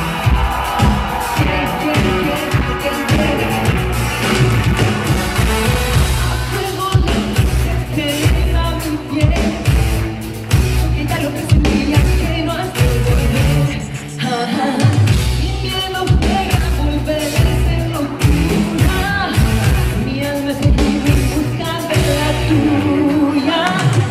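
Live Latin pop band playing a song with a steady beat while a woman sings lead into a microphone.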